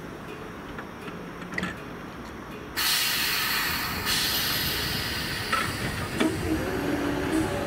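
Great Northern Class 313 electric multiple unit at the platform: a sudden loud hiss of compressed air about three seconds in, as its brakes release for departure. A little after six seconds the hum of its traction motors sets in and rises slightly as it starts to pull away.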